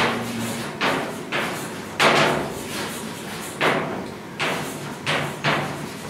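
Chalk writing on a blackboard: about ten short, sharp strokes and taps of the chalk against the board as words are written out, each with a brief ring of room echo.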